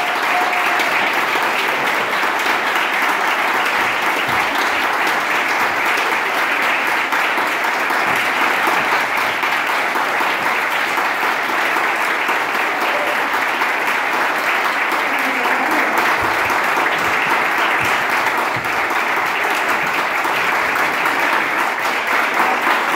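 Audience applauding steadily, a dense clapping that holds at an even level throughout.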